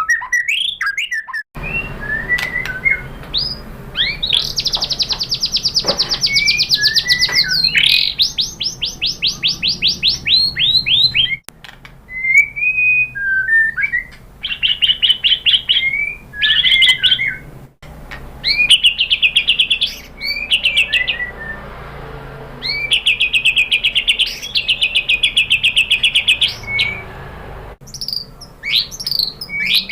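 White-rumped shama singing: long, very fast trills of rapidly repeated notes lasting a few seconds each, alternating with short whistled phrases. The song breaks off abruptly a few times.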